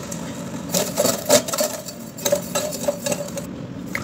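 A silicone spatula stirring sugar and water in a stainless steel pot to dissolve the sugar for syrup: irregular scraping strokes against the metal with a faint ringing from the pot, starting about a second in.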